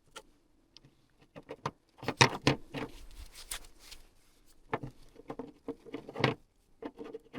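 Irregular light clicks, taps and rattles of small parts being handled and fitted while reassembling an ATV's CVT variator, with louder clusters about two seconds in and again near six seconds.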